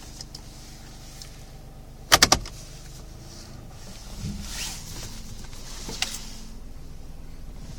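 Car driving slowly forward with a steady low running hum and an unexplained hiss that swells and fades a couple of times. A quick rattle of three or four sharp knocks sounds about two seconds in.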